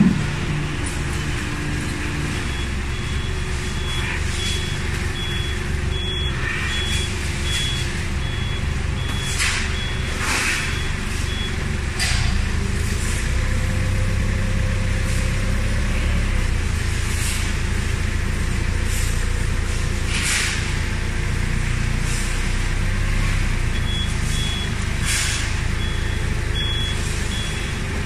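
Forklift engine running steadily while it lifts and carries a heavy bale, with its travel alarm giving repeated high beeps for several seconds at a time, twice. The engine note grows a little louder about halfway through, and there are occasional short noise bursts.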